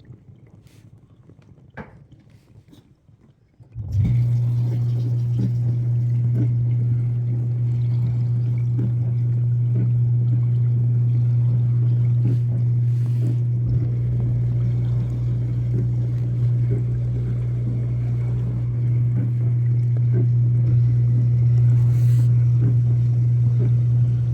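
Whirlpool dishwasher's pump motor starting about four seconds in and then running with a steady low hum, small ticks and clicks over it.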